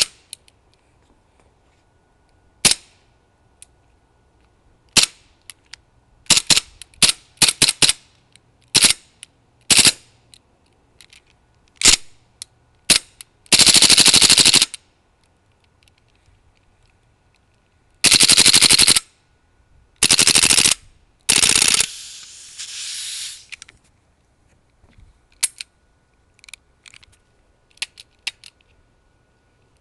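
Modded M9 gas airsoft pistol firing single shots and then several full-auto bursts of about a second each, the longest near the middle. The gas is misbehaving in full auto, and after the last burst there is a weaker hissing spurt, then a few faint clicks.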